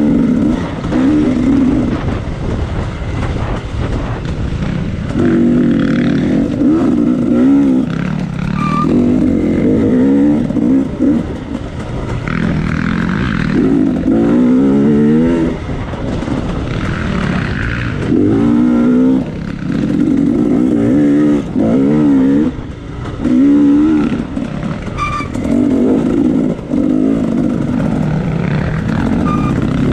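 Off-road dirt bike engine revving and easing off over and over, the throttle opened in short bursts of one to two seconds, its pitch rising and falling with each one.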